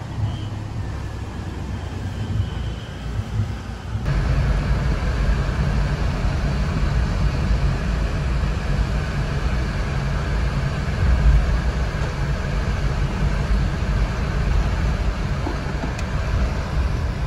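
Steady road and engine noise heard inside a moving car's cabin, cutting in suddenly about four seconds in; before that, a quieter low rumble of room ambience.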